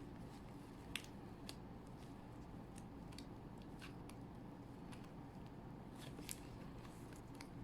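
Scattered faint clicks and small snaps from hands working the rubber dam sheet and its clamp and instruments, two of them sharper, about a second in and near the end, over a low steady room hum.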